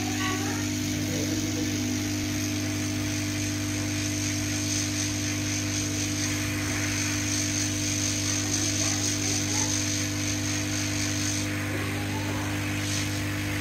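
Steady hum of a small electric motor or fan running, with a high hiss over it that drops away near the end.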